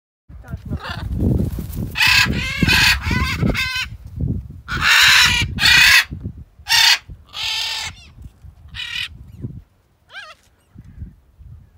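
Macaws giving a run of loud, harsh squawks, the loudest between about two and seven seconds in, with wind rumbling on the microphone.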